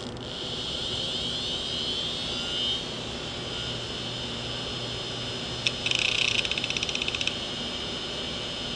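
Opened hard disk drive powering up: the spindle motor spins the platter up with a rising whine over the first few seconds, then runs with a steady high whine. About six seconds in, the read/write head arm seeks in a quick rattle of clicks lasting about a second and a half.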